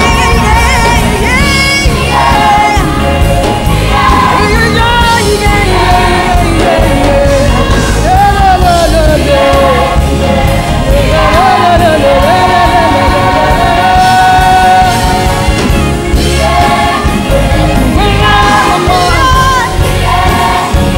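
Choir singing with instrumental accompaniment.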